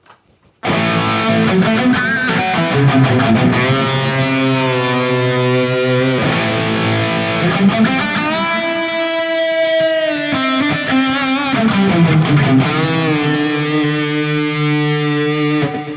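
Electric guitar with a distorted tone played through a digital amp-modeling unit: held notes with pitch bends, starting about half a second in and fading out near the end.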